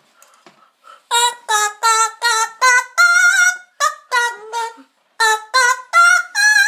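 Panama amazon parrot singing a run of about a dozen short, pitched notes, starting about a second in, with one longer wavering note around three seconds in.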